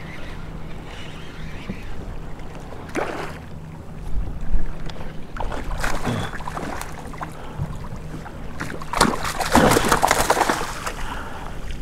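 A hooked flounder splashing at the surface beside a kayak and being scooped into a landing net, the heaviest splashing near the end. A low thump comes about four seconds in.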